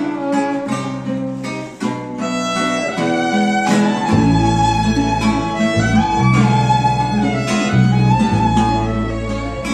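Instrumental passage by a Venezuelan string ensemble: a violin carries the melody over strummed cuatros and guitar. A deep bass line comes in strongly about four seconds in.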